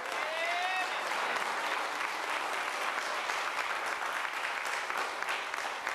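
Congregation applauding: many hands clapping steadily. A single voice calls out briefly, rising in pitch, just as the clapping begins.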